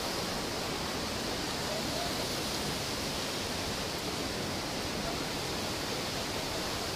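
Steady, even rush of the Düden Waterfalls' falling water.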